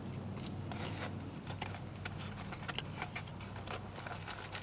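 A mouthful of burger being chewed close to the microphone, with many small irregular wet clicks over a steady low hum.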